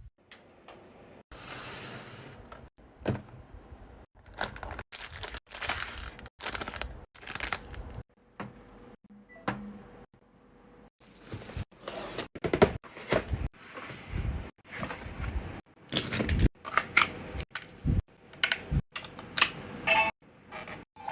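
Close handling sounds of small items and packaging: an irregular run of taps, clicks and light knocks, some with short rustles, growing busier about halfway through.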